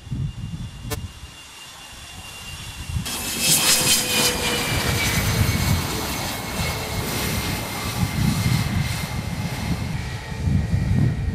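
Sukhoi T-50 (PAK FA) fighter's twin jet engines running as it lands and rolls out with its braking parachute out. About three seconds in the sound gets suddenly louder, a strong hiss with a high turbine whine that slowly falls in pitch.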